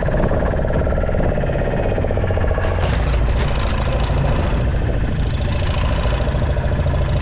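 A fishing boat's engine running steadily with a rapid, even beat, and a handful of sharp clicks about three to four seconds in.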